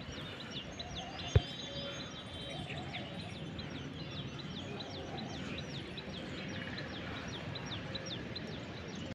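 Birds chirping continuously in quick short high notes, several a second, over a low steady outdoor rumble. A single sharp click about a second and a half in is the loudest sound.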